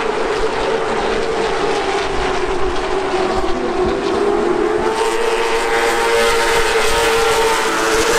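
A pack of NASCAR late model stock cars running at racing speed, their V8 engines making a loud, steady drone whose pitch wavers slightly.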